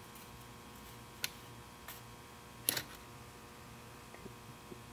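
A handful of small, sharp clicks as a fingernail picks at tiny ceramic chip capacitors on a circuit board, the loudest about two and a half seconds in, over a faint steady hum.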